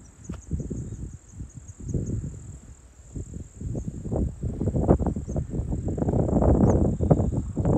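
A steady high drone of insects, with a few short high chirps over it. Wind buffets the microphone in irregular gusts that grow stronger in the second half.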